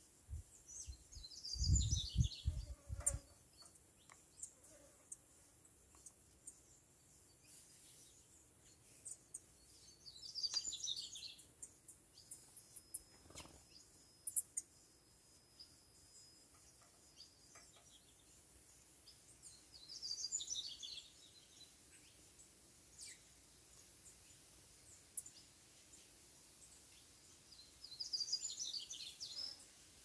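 A small songbird sings a short, high, twittering phrase about every nine seconds, four times in all. A few low thumps, wind or handling on the microphone, come about two seconds in. A faint thin steady whine is heard for several seconds in the middle.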